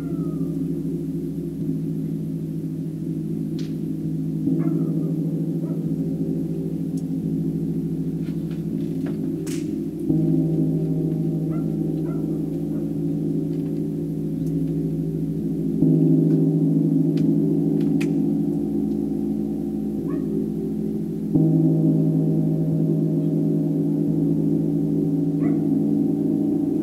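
Deep, sustained metallic ringing tones that swell afresh every five or six seconds, each new swell lifting the level suddenly and then slowly fading.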